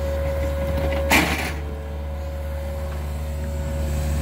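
Yanmar ViO50 mini excavator's diesel engine running steadily under load with a steady whine over it, as the bucket works a narrow trench in clay. About a second in, a short, loud, hissing burst stands out above the engine.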